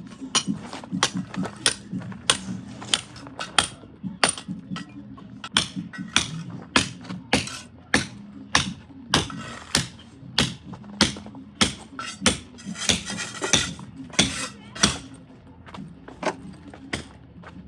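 Repeated sharp hammer blows, irregular, about two a second, from construction work rebuilding brick walls, with faint music playing underneath.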